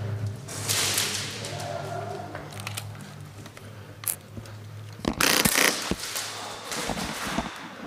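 An airsoft gun firing a rapid burst of about half a second, a little past the middle, after a few single clicks. Rustling movement noise runs over a steady low hum.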